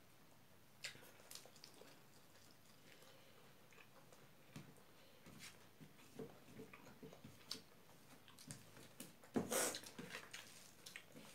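Faint eating sounds: close-miked chewing and mouth noises and fingers mixing rice on a plate, as scattered small clicks and soft ticks, with one louder brief noisy sound about nine and a half seconds in.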